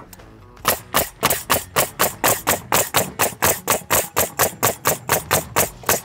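Pneumatic coil nailer firing rapidly, about three to four nails a second, driving nails through wooden fence pickets into the rails. The run of sharp shots starts just under a second in.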